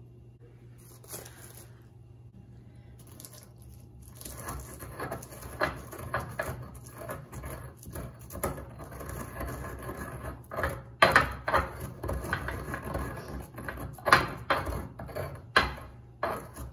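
Stone pestle grinding and pounding dried chiltepín chiles, black peppercorns and coarse sea salt in a volcanic-stone molcajete. The gritty scraping and knocking strokes start about four seconds in and come thick and irregular, with the loudest strokes after the middle and toward the end.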